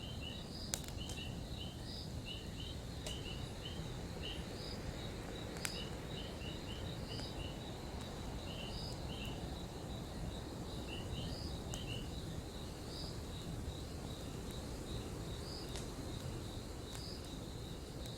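Campfire burning with a steady low rush and about five sharp crackles or pops spread through. A high-pitched chirping repeats steadily over it, with a faint steady high tone.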